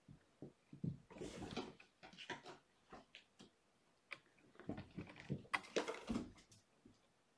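Kittens' paws thumping and pattering as they run, jump and scuffle on carpet and a carpeted cat tree. It comes as irregular knocks and rustles in two busier flurries, one near the start and one a little past the middle.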